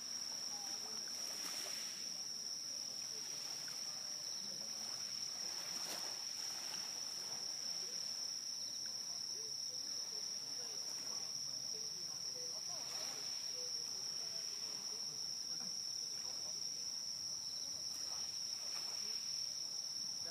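Evening insect chorus, most likely crickets: one steady, unbroken high-pitched trill.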